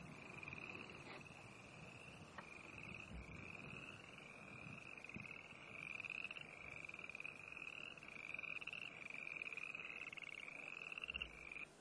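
A chorus of boreal chorus frogs calling: short rising trills, each about a second long, following one another without a break, that cut off abruptly near the end.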